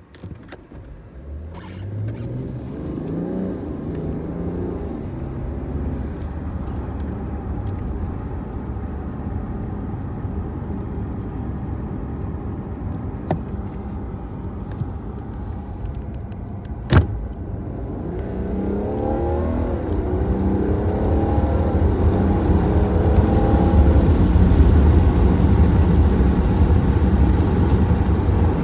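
BMW car heard from inside the cabin pulling away and accelerating, the engine note rising several times as it goes up through the gears, then running steadily with a low road rumble. A sharp click comes just past halfway, followed by a second pull, the engine note rising again before the rumble grows louder.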